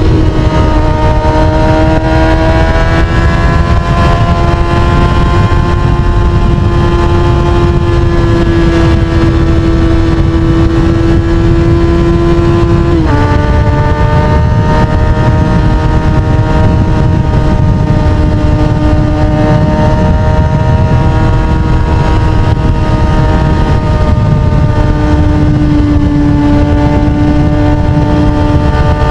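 Sportbike engine running at steady high revs under heavy wind rush, heard while riding. Its pitch drops once, suddenly, about halfway through, and then holds steady again.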